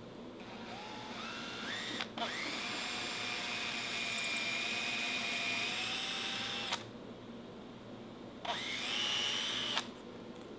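Makita 18V cordless drill boring a 3/16-inch hole into a small wooden block. The motor whine winds up in steps, breaks off for a moment, then runs steadily for about four and a half seconds and stops. A shorter, louder burst comes near the end.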